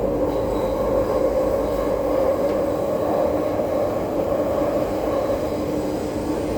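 MTR Tuen Ma Line C-Train metro train running along the track: a steady rumble of wheels on rail with an even humming tone.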